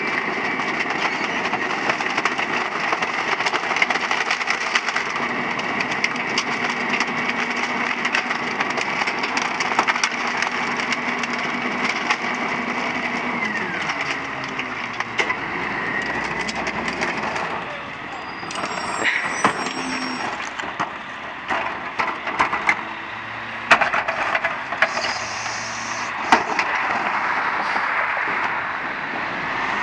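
Heil 5000 rear-loading garbage truck packing a load: the engine is held at raised revs with a steady hydraulic whine while junk is crushed in the hopper. About 13 seconds in, the revs and the whine slide down and fall away. After that the truck idles, with scattered sharp knocks and bangs of trash and carts.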